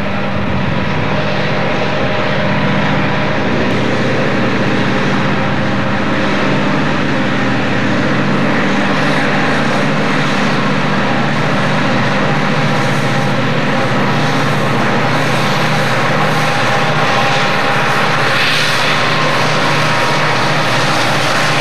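Several Denver & Rio Grande Western diesel-electric locomotives running as a freight train approaches and passes close by, their engines making a steady low hum.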